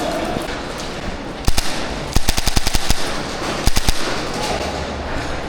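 Airsoft electric guns firing rapid full-auto bursts: three bursts, a short one, a longer one in the middle, and another short one.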